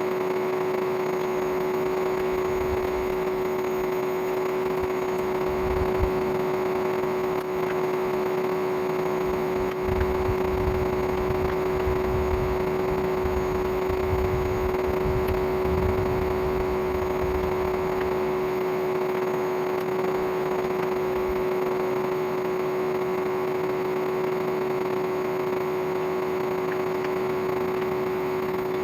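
Old vacuum cleaner motor running steadily as the air blower of a homemade coal forge: one constant whine over a rush of air. Some low rumbling comes and goes in the middle.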